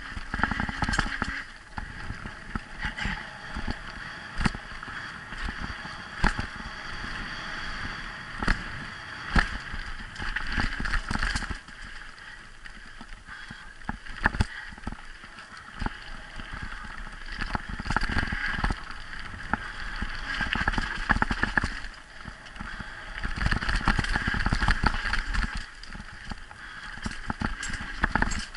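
Mountain bike riding fast down a dirt singletrack: tyres rolling and crunching over dirt and gravel, with frequent sharp clatters and knocks from the bike over rough ground, and a steady rushing noise underneath.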